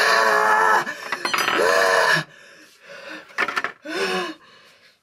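Loud wordless cries from a young man: three rising-and-falling yells, the first near the start, the next about a second and a half later and a last one near the end. Clinking and rustling of a spoon in a plastic food tray under the first two.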